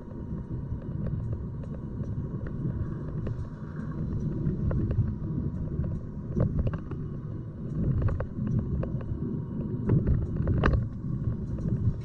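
Car driving: a steady low rumble of road and engine noise, with frequent light knocks and rattles and one louder knock about ten and a half seconds in.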